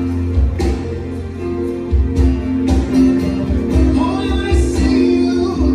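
A recorded song with a strong bass and held instrumental tones; a voice comes in singing about four seconds in.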